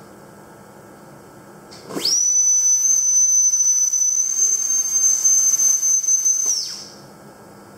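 VDW EDDY tip driven by an air scaler (air-powered sonic handpiece), oscillating in a syringe of water. It spins up with a sharp rising whistle about two seconds in, holds one steady high-pitched whistle with a hiss of air for about four and a half seconds, then winds down and stops.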